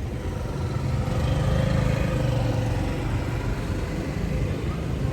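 Street traffic: motor vehicle engines running past, a low rumble that swells about a second in and eases off again after a couple of seconds.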